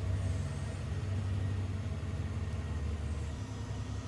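Ford Econoline E-150 van's engine running steadily at a low, even pitch, with no revving.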